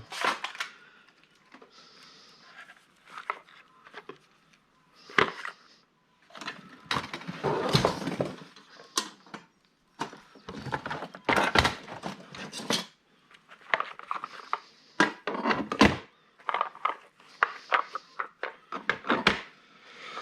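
Irregular knocks and clatter of hard scrap objects being handled and set down, with single sharp knocks and short quick runs of clicks, separated by quieter gaps.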